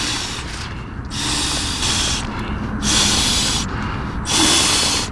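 A person breathing hard and rhythmically close to the microphone, a hissing breath about every second and a half, as after physical exertion.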